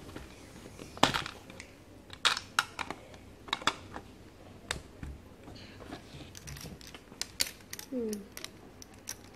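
A string of irregular sharp clicks and knocks of small hard objects being handled, likely the plastic capsule-toy machine and its coins. A short falling vocal sound comes about 8 seconds in.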